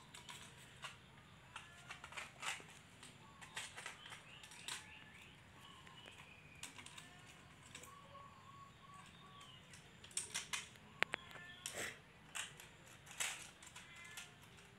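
Kittens playing on a concrete floor: faint, irregular scuffs and clicks of small paws and a hand against the floor, with a cluster of sharper clicks about two-thirds of the way in and a few faint high squeaks.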